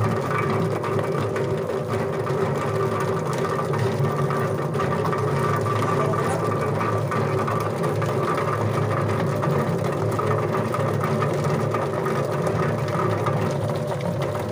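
Durian spinner extractor running steadily: its motor and spinning stainless-steel drum make a constant hum, with small irregular knocks as the durian pulp and seeds churn against the drum and scraper.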